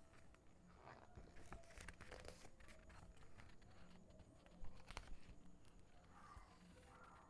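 Faint rustling and crinkling of packaging being handled, with scattered small clicks and taps, one louder tap about four and a half seconds in.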